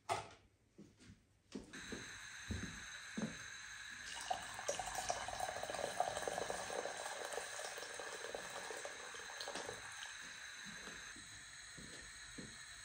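Water pouring into a stainless steel pot on a gas stove, a steady splashing fill that is loudest in the middle and eases off near the end. A few light knocks come just before the water starts.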